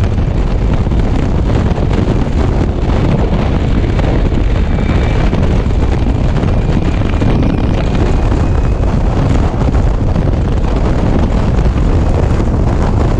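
Steady, loud wind rush buffeting the microphone of an electric scooter ridden at about 85 km/h in traffic, with road and traffic noise under it and no engine note.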